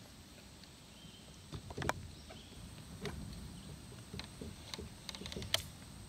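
Scattered light knocks and clicks from a just-landed smallmouth bass and tackle being handled in a kayak. They come irregularly, with a quick run of them near the end.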